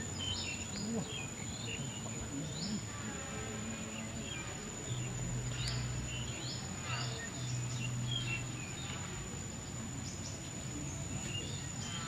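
Birds chirping here and there in short calls over a steady high-pitched insect drone, with a low hum for a few seconds in the middle.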